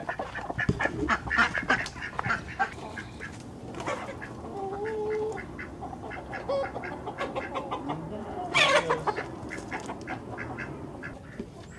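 Chickens clucking and calling, with scattered short clicks and knocks. One louder, falling squawk comes about eight and a half seconds in.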